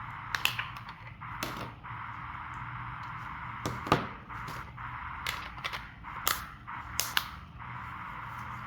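Scattered sharp clicks and taps of a keypad phone being handled, about ten in all, the loudest about four seconds in, over a steady background hiss.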